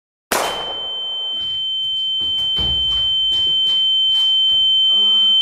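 A single steady high-pitched sine tone, growing gradually louder: a ringing-in-the-ears sound effect of the kind used for a dazed, wounded soldier. It starts with a short burst of noise and has faint muffled knocks under it.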